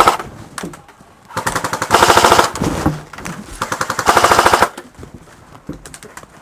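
Airsoft electric M249 (A&K M249 Para) firing two full-auto bursts of about a second each, rapid evenly spaced shots with the whir of the gearbox, one about a second and a half in and another about four seconds in.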